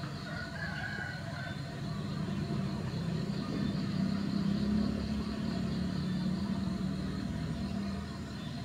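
Low hum of an unseen engine that swells to its loudest about halfway through and eases off, with a short higher call near the start and a faint steady drone underneath.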